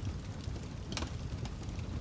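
Wood fire crackling: a steady low rumble of flames with scattered sharp pops, the loudest about a second in.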